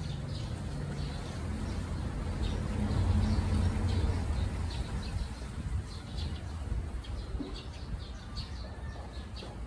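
Birds chirping in short high calls, over a low rumble that swells for a couple of seconds in the middle.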